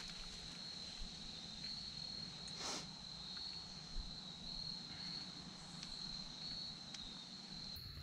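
Crickets trilling continuously in a steady high pitch, with a brief rustle about two and a half seconds in.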